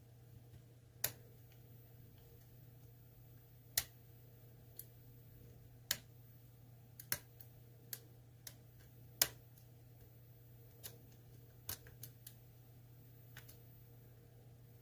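Light, irregular metallic clicks of a lock pick and tension wrench working the spool pins of an ASSA Twin Combi pin-tumbler cylinder, over a low steady hum.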